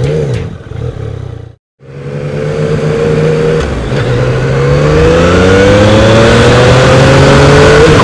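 Music for the first second and a half, then a brief silence. After that, a Yamaha FZ-09's 847 cc inline-three engine runs under acceleration while the bike is ridden. Its note dips briefly about four seconds in, then climbs steadily in pitch.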